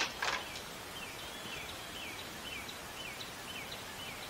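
A bird singing a rapid series of short falling whistles over steady outdoor background hiss. A sharp knock and a brief scrape come right at the start.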